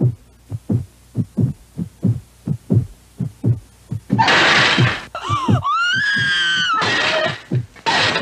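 Low, even heartbeat-like thumps pound about three times a second on a horror film trailer's soundtrack. About four seconds in they give way to a woman's loud, high screams whose pitch wavers up and down.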